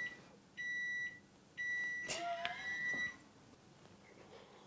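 Electronic beeper sounding three times about a second apart, a single steady high tone each time, the first two short and the third held for about a second and a half. A sharp click comes about two seconds in, during the long beep.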